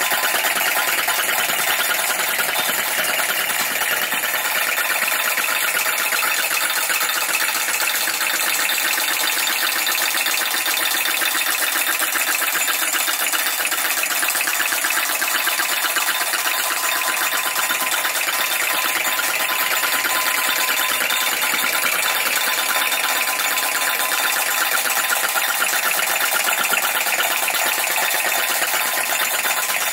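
PM Research No. 3 flame-licker (vacuum) model engine running steadily at speed and belt-driving a model four-stamp gold battery stamper: a rapid, even mechanical clatter of the engine's valve gear and the stamps lifting and dropping.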